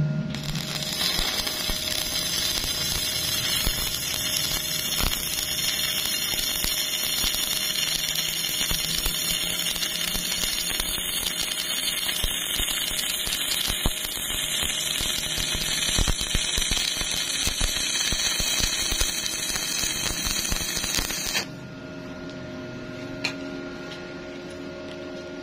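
Stick (shielded metal arc) welding arc crackling and hissing steadily as a coated electrode runs a horizontal fillet weld along a steel T-joint. The arc cuts off suddenly about 21 seconds in, leaving a faint steady hum.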